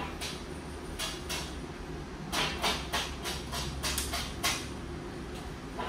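Artificial plastic hanging vines rustling and crackling as they are handled, in a run of short bursts through the middle, over a steady low hum.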